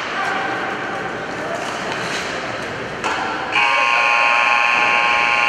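Ice rink's scoreboard horn sounding one long, steady blast that starts a little past halfway through and is the loudest thing here. Before it there is only the general din of the rink.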